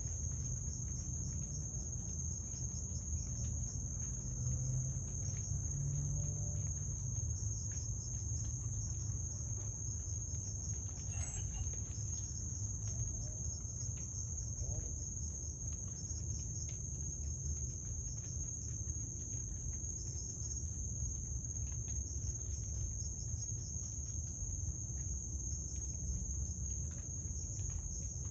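Night insects, crickets, trilling continuously in one steady high-pitched chorus over a low rumble.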